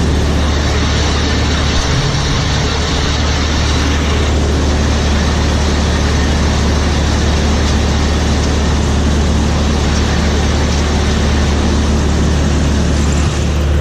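John Deere 3300 combine running steadily at harvest, heard close up: a strong, steady low hum under an even mechanical rush.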